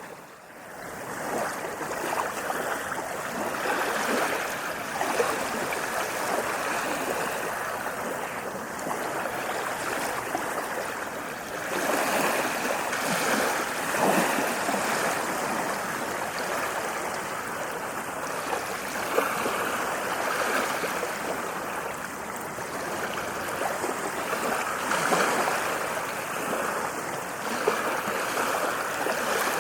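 Ocean waves washing on a beach: a continuous rushing hiss that swells and eases every few seconds, briefly dropping away at the very start.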